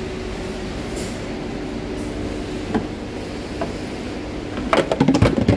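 Steady hum with a faint tone, with a few light clicks, then a quick run of sharp clicks and knocks near the end as tools and parts are handled at the open tail-light housing.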